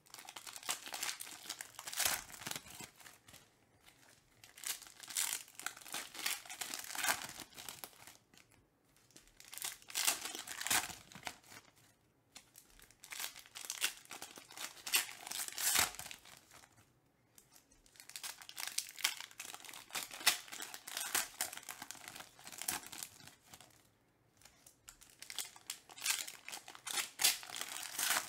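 Foil trading-card pack wrappers being torn open and crinkled by hand, in crackly bursts every few seconds with short pauses between.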